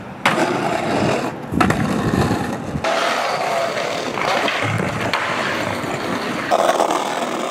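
Skateboard wheels rolling on street pavement, with a few sharp clacks of the board.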